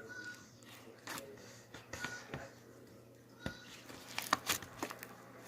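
Hands squeezing and stretching slime: scattered small sticky clicks and pops, some with a brief squeak.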